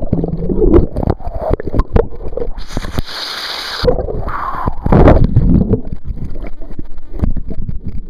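Pool water heard through a submerged waterproof camcorder's microphone: muffled, uneven low sloshing and knocking of the water. About three seconds in there is a short spell of hissing splash noise.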